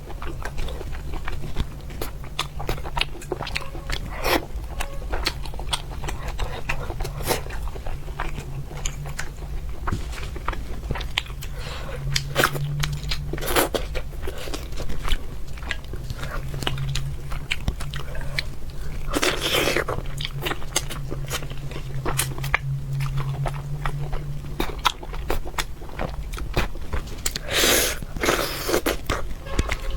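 Close-miked eating of braised fish: wet chewing with many small crisp bites and crunches, and a few longer, louder crunches spread through.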